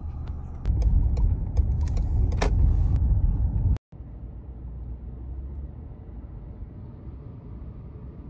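Car driving: a steady low rumble of engine and road noise with a few clicks and taps in the first three seconds. It cuts off abruptly about four seconds in and comes back quieter.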